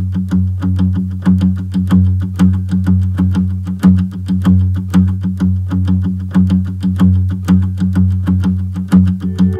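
Background music: a quick, even run of plucked notes, about four or five a second, over a steady low drone.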